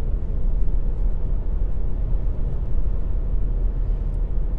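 Car driving: a steady low rumble of engine and road noise with no distinct events.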